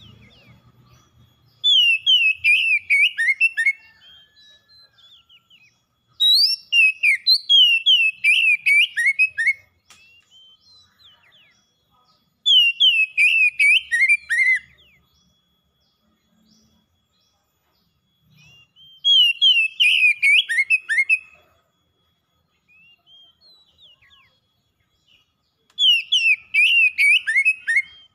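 Oriental magpie-robin singing: five loud phrases of rapid whistled notes, each note sliding downward, every phrase two to three seconds long with pauses between.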